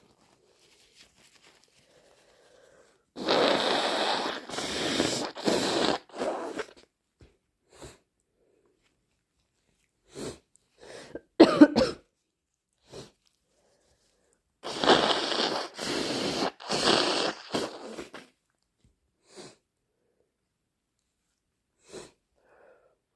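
A person sneezing and blowing their nose from induced hay fever. Two long nose blows of several puffs each come about three seconds in and again about fifteen seconds in, with a short, loud sneeze between them and a few fainter short sounds.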